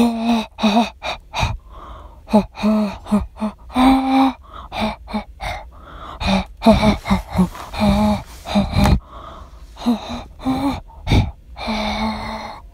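A person's voice making an irregular string of short breathy gasps and brief voiced sounds, with sharp breaths between them.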